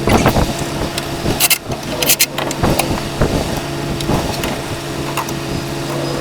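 An engine running steadily under irregular knocks and clatter of parts and tools being handled during reassembly.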